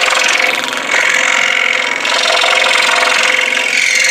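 Jet scroll saw running steadily, its reciprocating blade cutting through a thin wooden workpiece as it is fed along the pattern line.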